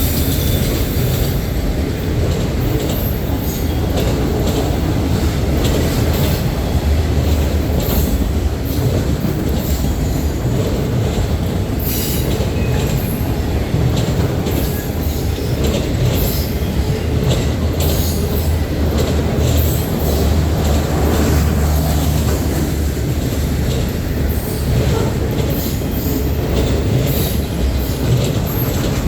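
CN freight train rolling past: a steady heavy rumble of steel wheels on rail, with many brief high-pitched wheel squeals and clicks along the way.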